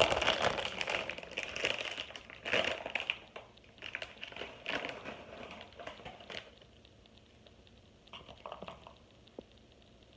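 Cheese doodle snack bag crinkling and rustling in irregular bursts as the snacks are taken out, dying down after about six seconds to a few faint clicks.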